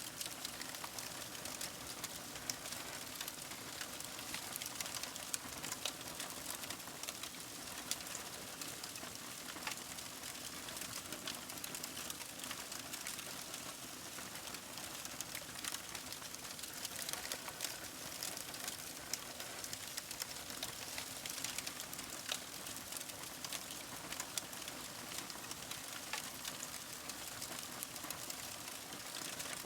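Paper burning: a steady hiss of flame with dense small, sharp crackles and pops scattered through it.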